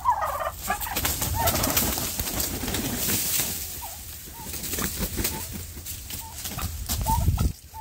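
Domestic turkeys making soft cooing calls, with a stretch of rustling and crackling handling noise in the middle.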